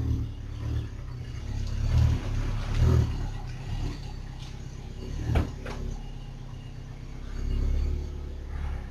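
A car's rear limited-slip differential and driveline, heard as a low rumble with clunks about two and three seconds in and a sharper one about five seconds in. This is the abnormal differential noise being investigated.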